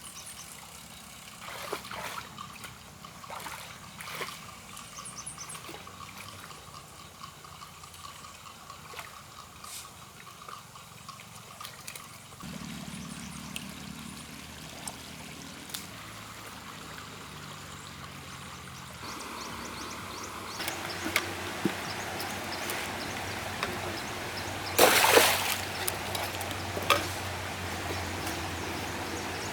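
Muddy water trickling and splashing, with scattered small splashes and one louder splash about 25 seconds in.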